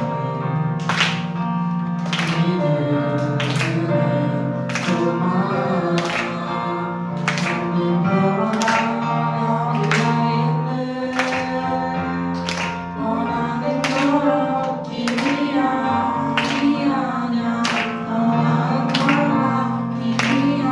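Contemporary Christian worship song played by a band, with singing over sustained chords and a steady drum beat hitting about once every second and a bit.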